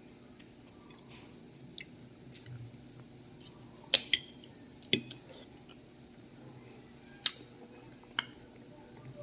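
Close-up chewing of fresh sugar apple (atis): scattered wet mouth clicks and smacks, the sharpest about four, five and seven seconds in.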